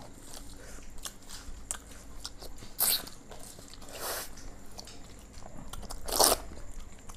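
People eating chicken curry and rice by hand, chewing and crunching on chicken bones. Small clicks run throughout, with three louder noisy bursts about three, four and six seconds in.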